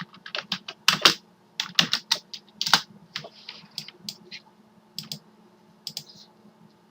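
Typing on a computer keyboard: irregular keystrokes, quick and dense at first, then thinning out to scattered taps.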